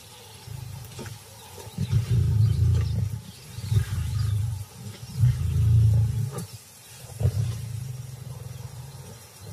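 Lions growling: a series of low, rumbling growls with short pauses between them, the loudest around two and six seconds in.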